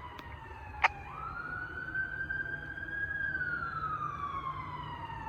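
Fire engine's electronic siren on wail: a falling tone that swoops back up about a second in, holds, then slowly winds down again. A single sharp click sounds just before the rise.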